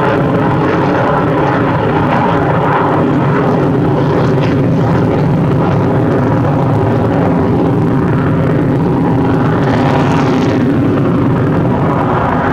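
Sukhoi Su-57 fighter's jet engines at high power during aerobatic manoeuvres: loud, steady jet noise, swelling and growing hissier about ten seconds in.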